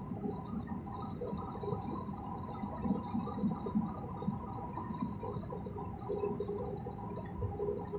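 Steady jet engine and airflow noise heard inside an airliner cabin during the descent to landing, a low rush with thin, steady whining tones above it.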